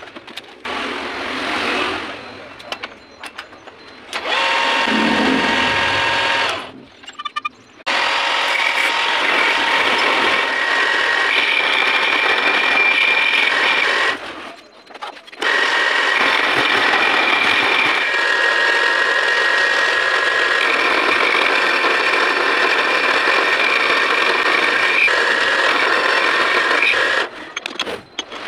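Vertical milling machine face-milling a metal workpiece with a fly cutter: a steady machining noise with a ringing whine in it, broken by a few short drops in level.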